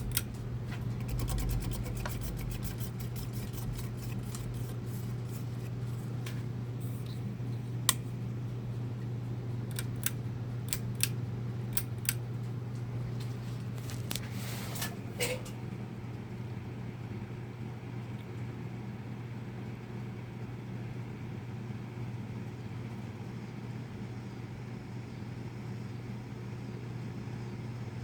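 2007 Harbor Breeze Armory 42-inch ceiling fan running with a steady motor hum. A scattering of sharp clicks comes through the first half, then only the even hum.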